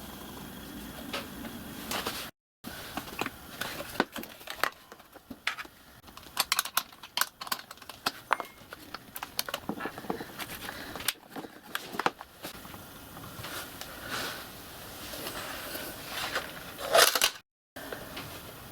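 Scattered clicks, taps and light knocks of hand tools and metal parts being handled, with a louder clatter near the end. The sound cuts out briefly twice.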